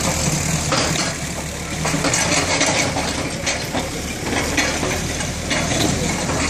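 Heavy diesel engines running steadily at low revs as a farm tractor moves a JCB crawler excavator set on wheels. Scattered short clanks and rattles run through it.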